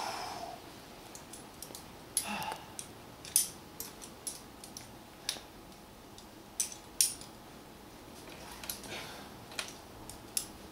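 Metal climbing gear clinking: carabiners and quickdraws jangling in sharp, irregular clicks, the loudest about three and a half and seven seconds in. There are a couple of short breathy sounds near the start.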